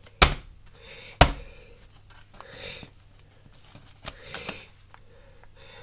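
Aluminium foil food container being handled on a worktop: two sharp knocks about a quarter second and a second in, then lighter taps and foil crinkles around four seconds in.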